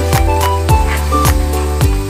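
Background music with a steady beat of about two thumps a second under a light melody of short notes.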